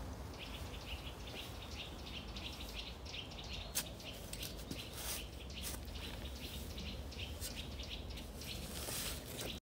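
Small birds chirping over and over, with a single sharp click about four seconds in.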